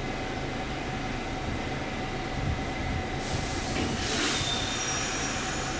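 New York City subway train with R68-type cars standing at the platform, giving off a steady idling hum with a thin constant tone. About three seconds in, a high hiss of air starts and swells briefly a second later.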